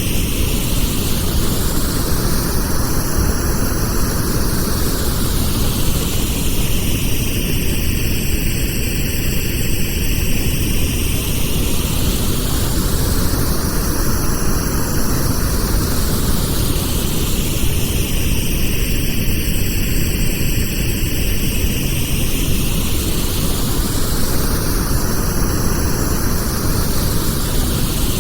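Steady pink noise, a continuous hiss heaviest in the low end. Its tone sweeps slowly up and back down about every eleven seconds, giving a soft whooshing swell like a distant jet passing.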